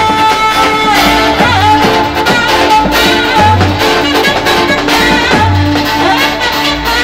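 Roman havası dance music: a saxophone melody over a davul drum beat and deep bass notes about every two seconds. A long held sax note gives way to a busier run about a second in.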